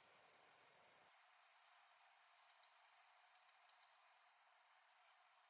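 Near silence with faint computer mouse clicks: two about halfway through, then a quick run of four a second later.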